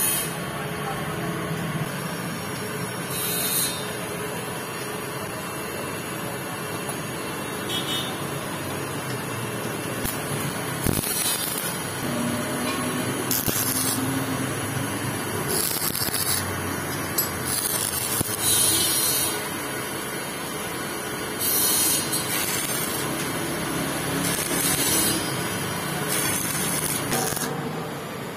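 Stick (arc) welding on the valve seat of an air-cooled motorcycle cylinder head. The electrode crackles and hisses in short runs of about a second each, over a steady background noise. The weld beads are being laid on the old seat to loosen it for removal.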